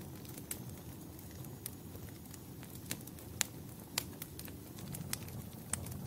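Wood fire crackling in a fireplace: a steady low rumble of burning logs with scattered sharp pops, the loudest a little past halfway.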